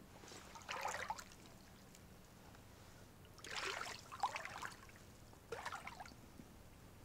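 Water trickling and splashing in three short spells, each about a second long.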